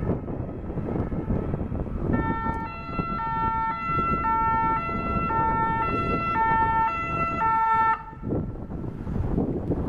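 Ambulance siren sounding a repeating pattern of alternating steady notes, the cycle coming round about once a second, over street traffic noise. It starts about two seconds in and cuts off abruptly near eight seconds.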